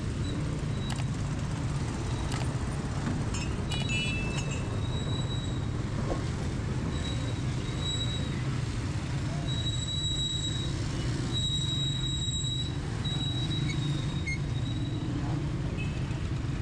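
Busy street ambience: a steady low rumble of traffic with faint voices, and a thin high whine that comes and goes.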